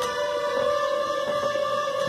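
Middle-school string orchestra holding a long sustained chord in the upper and middle voices, without the low bass notes.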